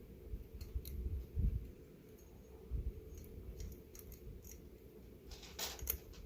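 Candle lantern's glass chimney and metal housing being handled and slid together: scattered light clicks and ticks with a few dull bumps, and a short scrape near the end.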